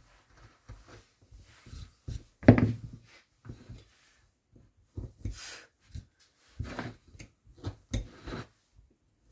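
Hand carving tool cutting and scraping into wood in short, irregular strokes, the loudest about two and a half seconds in.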